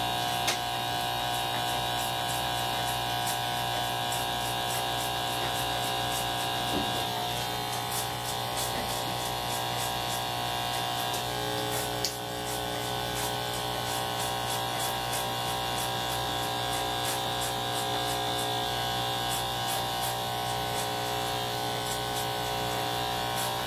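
Electric hair clippers running steadily, their buzz held even as the blades cut through hair.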